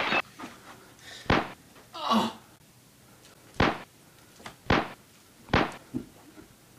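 A series of sharp single thuds, five of them at uneven gaps of about a second, the last one weaker. Between the first two there is a short, rushing, scuffling burst of noise.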